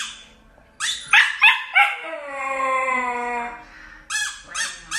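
White husky puppy giving a few sharp yips, then a drawn-out howl that slides down in pitch for about a second and a half, then more short yips near the end.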